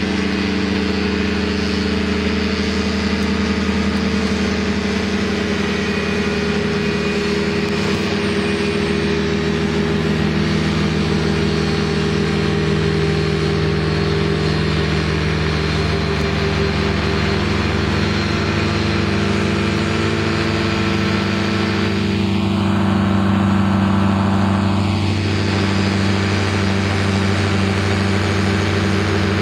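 Paramotor engine droning steadily in flight overhead, swelling as it passes closest about three quarters of the way through.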